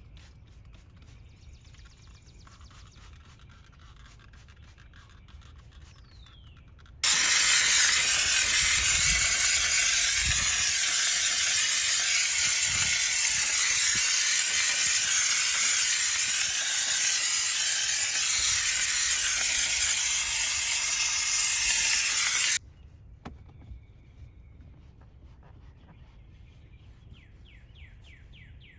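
Steam cleaner jetting steam from its nozzle: a loud, steady hiss that starts suddenly about seven seconds in and cuts off suddenly some fifteen seconds later.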